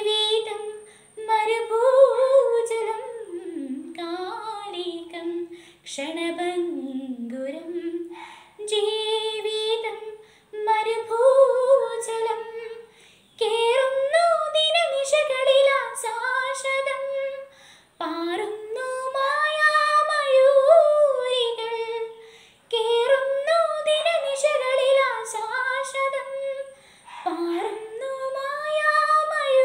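A teenage girl singing solo and unaccompanied, in sung phrases a few seconds long with short breaks for breath between them.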